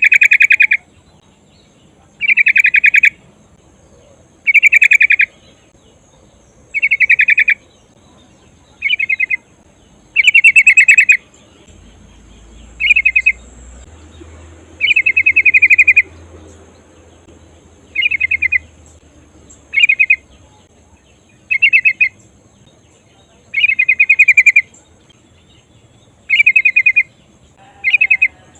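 Female yellow-vented bulbul (trucukan) giving short rolling trills, about one every two seconds, each lasting under a second. It is the female's call to males, used as a lure to set them singing.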